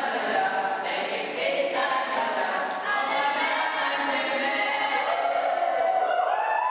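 A group of voices singing together without instruments, ending on a long held note that rises slightly near the end.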